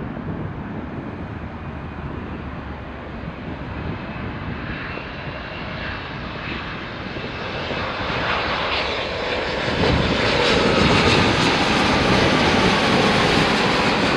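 Boeing 787 Dreamliner's twin jet engines on final approach, growing steadily louder as the airliner comes in low overhead. The sound is loudest from about ten seconds in, with a whine that drops in pitch as it passes.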